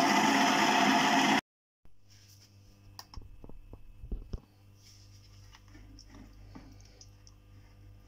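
Tabletop wet grinder with stone rollers running loudly as it grinds dosa batter, cutting off abruptly about a second and a half in. Then come soft wet squelches and clicks of thick batter being mixed by hand in a plastic bowl, over a low steady hum.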